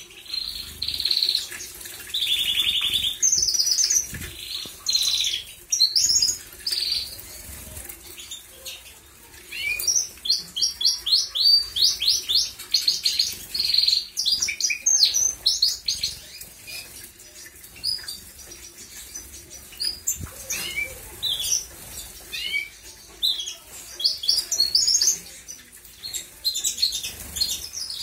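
Canaries singing: fast trills and strings of repeated high chirping notes, in bursts with short pauses. Now and then come the splash and flutter of wings as birds bathe in a shallow water dish.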